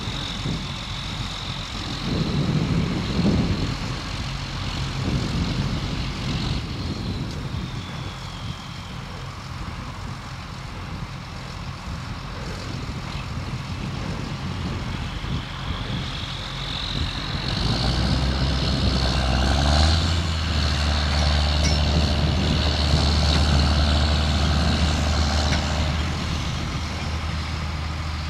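John Deere tractors' diesel engines working hard as one tractor tries to pull another out of the mud. A high whine rides over the engine note; past the halfway point the engines get louder and heavier as they pull under load.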